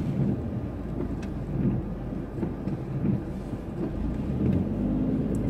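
Low, steady rumble of a car's engine and running gear heard inside the cabin, with a few faint ticks.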